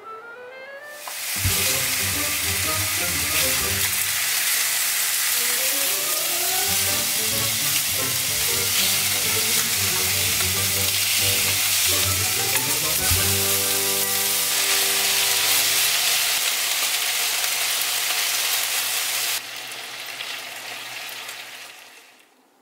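Meat and vegetables sizzling in a hot frying pan as they are stir-fried with nylon tongs. The sizzling drops in level about three-quarters of the way through and fades out near the end.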